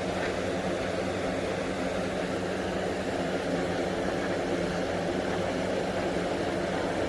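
Hurricane 20-inch box fan running, a steady rush of air over a constant motor hum.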